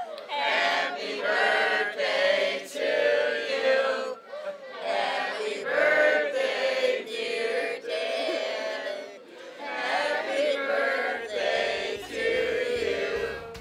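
A group of people singing a song together in unison, in phrases with short breaks between them.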